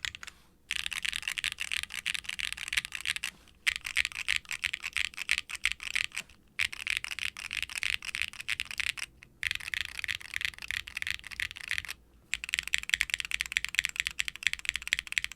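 Aluminum Hex80 keyboard with Gateron Orchid HE linear switches (full POM housings and stem), a carbon fiber plate, no case foam and GMK double-shot ABS keycaps, typed on quickly: a dense run of key clicks and bottom-outs. The typing stops briefly four times, each gap under half a second.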